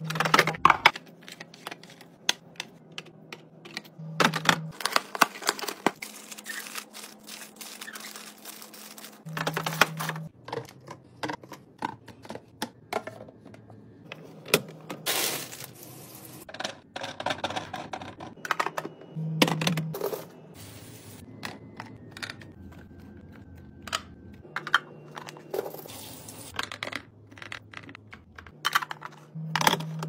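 Clear plastic fridge bins and food packages clacking, knocking and rustling as they are handled and set in place, with a rush of water from a sink sprayer rinsing grapes in a metal colander about fifteen seconds in. Background music plays underneath.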